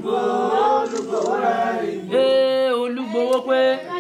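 A group of voices singing a Yoruba Ifa chant, with long held notes.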